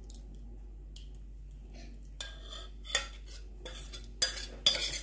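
A metal spoon scraping the inside of a stainless steel saucepan and clinking against it as thick berry compote is scraped out into a bowl. Quiet for the first two seconds, then a few scrapes and several sharp clinks in the second half.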